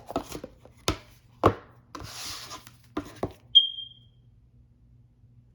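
Tarot cards and their guidebook being handled: a run of light taps and knocks, a brief sliding rustle about two seconds in, then a short high ping about three and a half seconds in that fades quickly.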